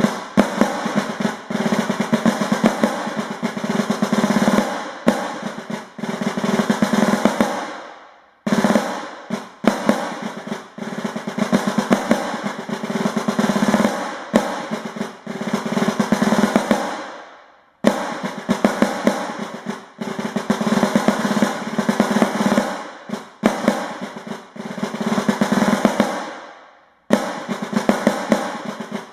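Rope-tension field drum played with wooden sticks in the Basel drumming style: a march of rapid rolls and strokes. It comes in phrases of about nine seconds, each tailing off into a short break, three times.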